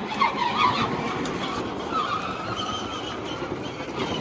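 Kids' electric ride-on quad driving on its drill-battery upgrade, with a steady high motor whine and a constant rumble of the wheels. A child gives high squeals in the first second.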